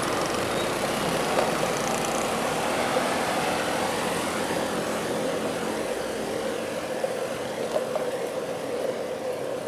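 Steady road traffic noise: the engines of motor vehicles running close by in slow traffic.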